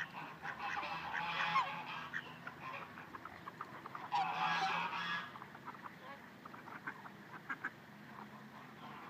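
Ducks and swans calling: harsh honking and quacking bursts in the first two seconds and again about four to five seconds in, followed by scattered short clicks.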